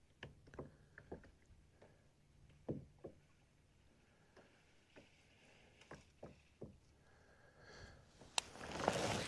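Scattered light knocks and clicks of gear being handled in a kayak, then a sharp click and a short swishing rush near the end.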